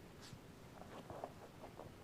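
Faint, short scratchy sounds, a small cluster of them from about a second in, over quiet room tone.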